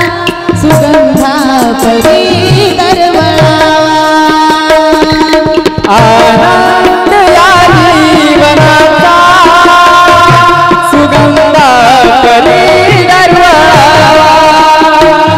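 Marathi devotional bhajan music: tabla drums play a steady rhythm under a wavering melody line.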